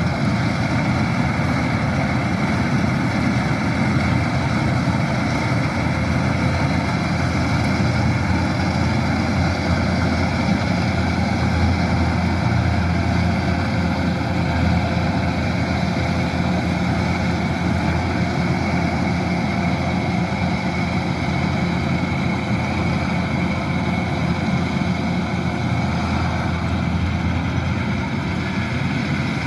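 Kubota DC-108X combine harvester running steadily: a continuous heavy engine and machinery drone.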